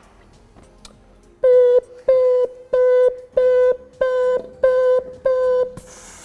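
Electronic beeping: seven evenly spaced beeps of one steady mid-pitched tone, about one and a half per second, like a reversing alarm, followed by a soft hiss near the end.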